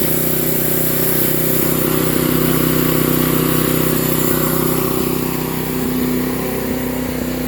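Sawmill engine running steadily with a constant hum and a wide noisy hiss over it.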